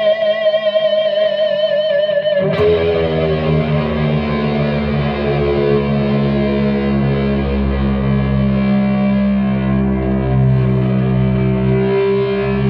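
Distorted Epiphone ES-339 electric guitar feeding back: a single held note wavers with vibrato, then about two and a half seconds in a low chord is struck and left to sustain and drone.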